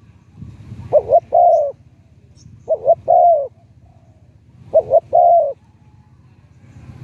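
Spotted dove cooing: three phrases about two seconds apart, each two short notes followed by a longer coo. A faint low rumble lies underneath.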